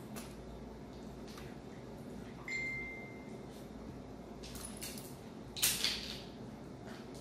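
Hands handling a laptop motherboard and its cooling fan assembly: a few small clicks, a brief high-pitched squeak-like tone about two and a half seconds in, and a short scraping rustle near the end, the loudest sound.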